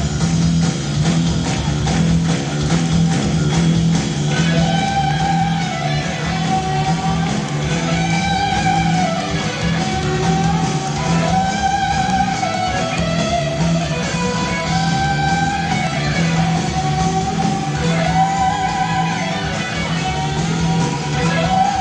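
Live hard-rock band playing, led by electric guitar: bending, held melody notes over a steady low bass pulse.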